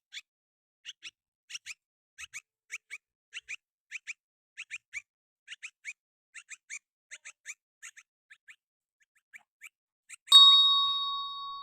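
Baby bird chirping: short high peeps, mostly in quick pairs, repeated every half second or so and thinning out toward the end. Near the end a single loud bell-like ding rings out and fades.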